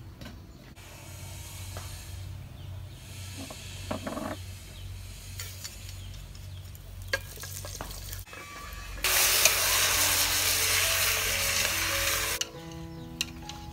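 Chicken pieces sizzling loudly in a hot aluminium pot as they are stirred with chopsticks; the sizzle starts suddenly about nine seconds in and stops suddenly about three seconds later. Before it, a quieter hiss with a few light clicks of utensils on the pot, over faint background music.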